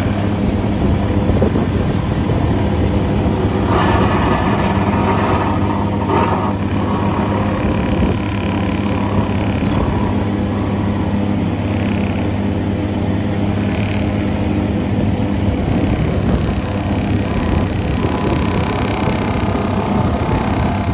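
Hitachi Zaxis 490 LCH excavator running hard while driving steel sheet piles: a steady low diesel drone with a dense, rapid vibration throughout. Brief higher-pitched metallic squeals break in several times.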